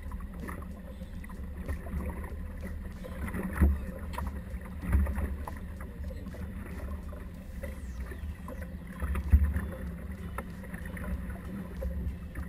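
Small fishing boat at sea, a steady low rumble with a few dull thumps, the loudest a little past 9 seconds.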